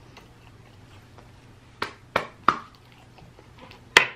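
Metal fork and knife clicking against a ceramic dinner plate while cutting into chicken: three quick clicks about two seconds in, then a sharper, louder clink near the end.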